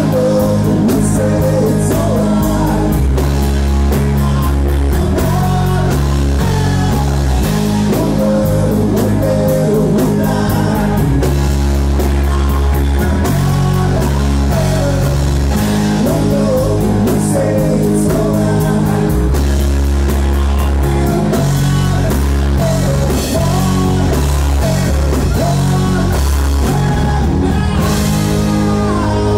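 Live rock band playing a song: a vocalist singing over guitar, a steady bass line and a drum kit keeping a regular beat on the cymbals.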